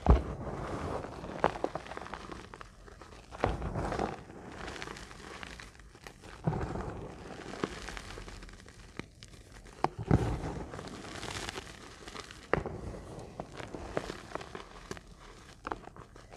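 Reformed gym chalk being crushed between the palms and fingers into a tray of loose chalk powder: dry crunching and crackling that comes in a fresh burst every second or two as the hands press down, with a softer grainy crumble between.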